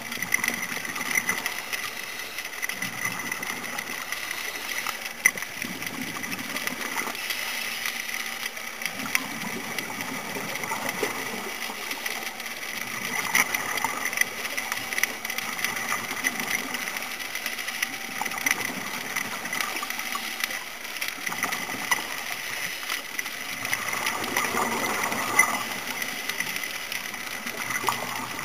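Muffled underwater sound of a scuba dive heard through a camera's housing: a steady hiss with a thin constant whine, with irregular swells of bubbling from a diver's regulator exhaust and a few sharp clicks.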